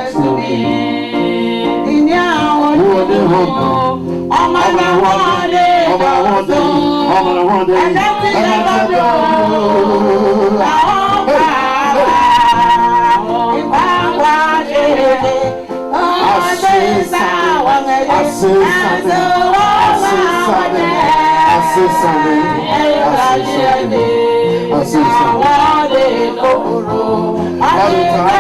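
Live church music: voices singing a song over instrumental accompaniment.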